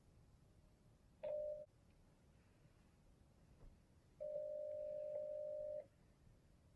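Telephone ringback tone of an outgoing call: one steady tone, sounding briefly about a second in and again for about a second and a half from about four seconds in. The call is ringing unanswered.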